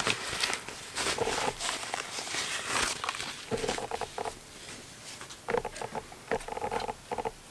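Camera-box packaging rustling and crinkling as a camera body is lifted out of it. The rustle is loudest in the first few seconds, then quieter handling with short squeaks and small clicks.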